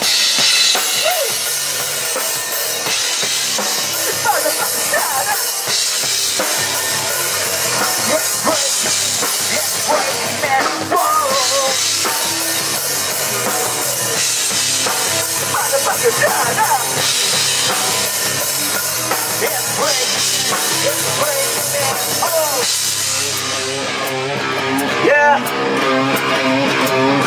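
Rock band playing rap-metal: a drum kit with crashing cymbals, electric guitars and bass guitar. Near the end the cymbals and drums thin out, leaving the electric guitar.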